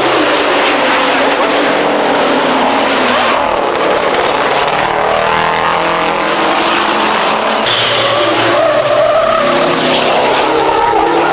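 Several racing trucks' diesel engines running hard together, their pitches rising and falling as they speed up and slow down.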